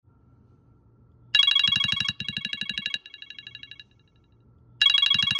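Electronic ringtone with a rapid bell-like trill. It sounds about a second in, steps down in loudness and dies away, then rings again near the end.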